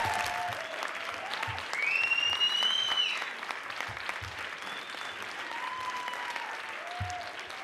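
Audience applauding, with a few cheers rising over the clapping, loudest about two seconds in.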